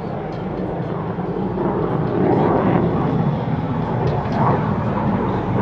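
F-16 Fighting Falcon's jet engine heard from the ground as the fighter flies high overhead: a steady rumbling jet noise that grows louder about two seconds in.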